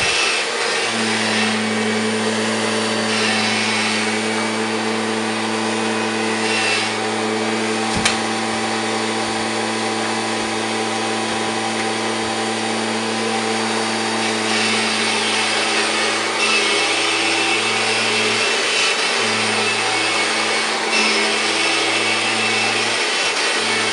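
A 1999 Kirby G5 upright vacuum cleaner running steadily on carpet: a constant motor hum with a rushing hiss over it that grows and fades every few seconds as it is worked back and forth. One sharp click about 8 seconds in.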